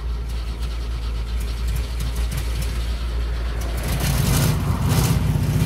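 Cold car engine running. About four seconds in it grows louder and rougher, with a fast pulsing beat.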